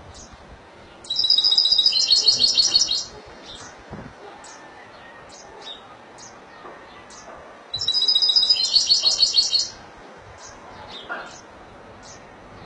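European goldfinch of the Spanish type singing: two loud, rapid trilled phrases of about two seconds each, one about a second in and one near eight seconds in, with short single chirps between them.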